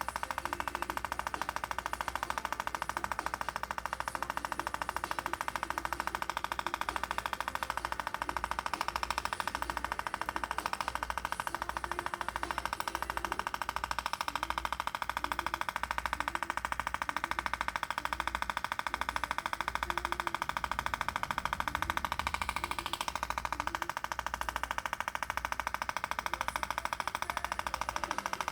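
Scalp micropigmentation tattoo machine buzzing steadily while the needle works on the crown of the scalp.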